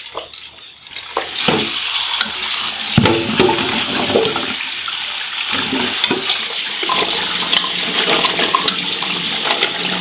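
Kitchen tap running into a metal pot of diced pumpkin in a stainless steel sink, with hands stirring the cubes under the stream to rinse off the ash lye. The water starts about a second in and runs steadily, with a few knocks of the pot in the first seconds.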